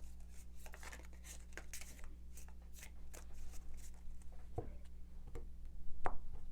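A tarot deck being shuffled by hand: a run of short, irregular card snaps and slaps.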